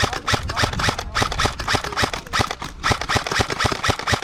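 Airsoft guns firing rapid, uneven strings of sharp shots, several a second.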